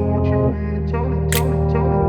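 Background music: sustained guitar-led chords with effects and echo, with a sharp percussion hit about one and a half seconds in.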